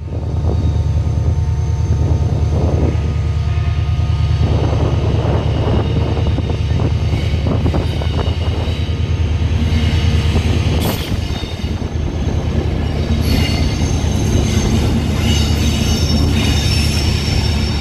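A diesel train running through a station, its engine giving a steady low drone, with high-pitched squealing tones from the wheels above it.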